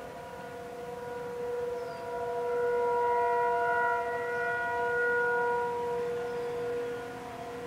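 Outdoor tornado warning sirens (Federal Signal 2001 and Thunderbolt types) sounding a steady tone, with more than one siren heard at once at different pitches. The sound swells to its loudest about two and a half seconds in and eases off again near the end, as the rotating siren heads sweep toward and away from the listener.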